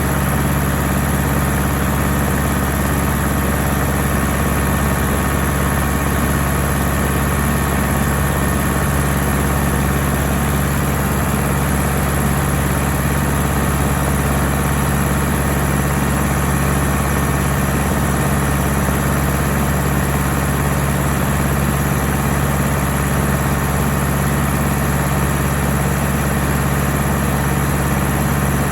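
Ford 6640 tractor's diesel engine running steadily at a constant speed, a low hum that does not change.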